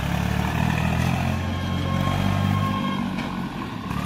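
An engine running steadily at idle, a low even hum. A faint high whine sits over it for a couple of seconds in the middle.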